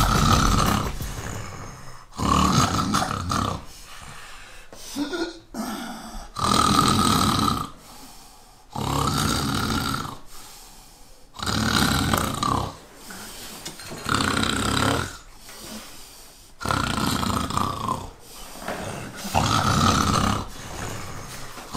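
A man snoring loudly: long rasping snores, each about a second, repeating roughly every two and a half seconds.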